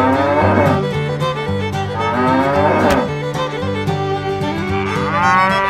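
A cow mooing three times, each moo rising and falling in pitch, laid as a sound effect over cheerful fiddle music.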